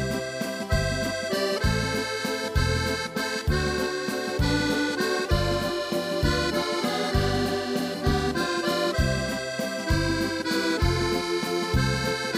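Waltz played on a Yamaha Tyros 4 arranger keyboard: a sustained melody and chords over a steady, evenly repeating bass note.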